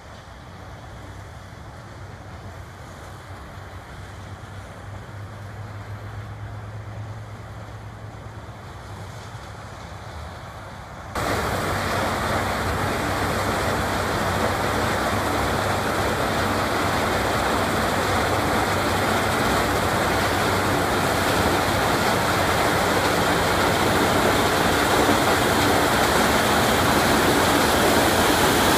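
Claas Lexion 760 TerraTrac combine harvesting maize: a steady engine and threshing roar with a low hum under it, growing louder as the machine approaches. About eleven seconds in the sound jumps suddenly louder and stays loud.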